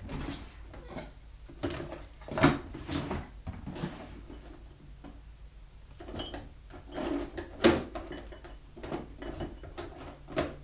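Irregular knocks, clicks and scrapes of tools and hands handling a wooden sculpting stand as it is turned, with two sharper knocks standing out, about two and a half seconds in and near eight seconds in.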